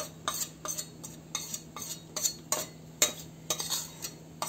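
Metal spoon clicking and scraping repeatedly, about two or three times a second, as spice powder is knocked off it into a steel bowl.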